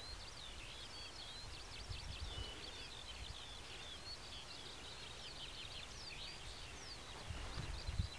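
Songbirds singing without a break, a dense run of quick chirps, trills and short whistles. Low wind gusts buffet the microphone, stronger near the end.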